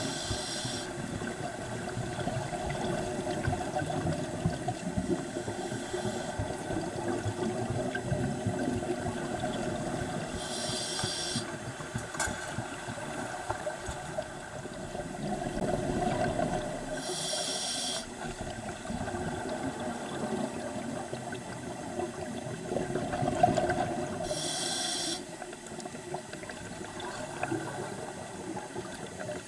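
Scuba diver breathing through a regulator underwater: four hissing inhalations, roughly seven seconds apart, with bubbling exhalations in between.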